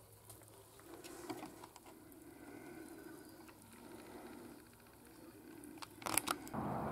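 Faint handling noise close to the microphone: light rustles and taps as a hand moves about a potted plant, with a quick cluster of sharp clicks about six seconds in. Just before the end a steady rush of outdoor noise sets in.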